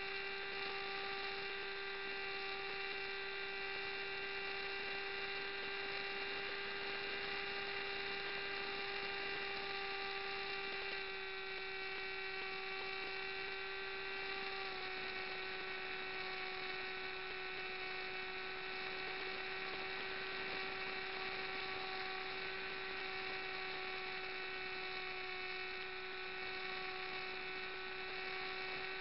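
A model aircraft's motor and propeller whining steadily in flight, heard from a camera mounted on the wing. The pitch steps down slightly twice, around the middle, as the speed changes.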